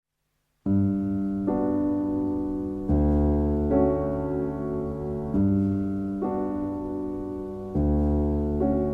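Intro music: a piano or electric piano playing slow sustained chords over a deep bass, changing chord every second or so, starting just under a second in.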